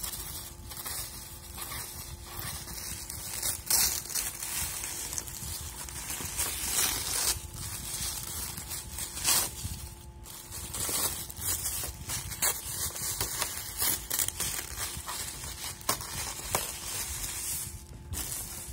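Pink tissue paper crinkling, rustling and tearing as it is pulled off a wrapped package by hand, in a dense run of irregular crackles.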